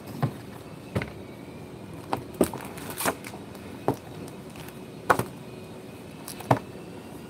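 A notebook and loose-leaf pad handled on a table: about nine irregular knocks and taps, some dull thuds, over a steady background hum.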